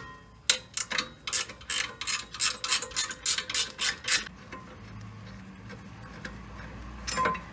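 Ratchet wrench clicking at about four clicks a second as it backs out a rear brake caliper bracket bolt. The clicking stops about four seconds in, and a single metal clink follows near the end.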